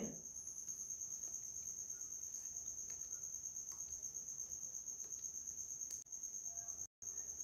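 Faint, steady high-pitched tone with a rapid, even pulsing, broken by a moment of dead silence about seven seconds in.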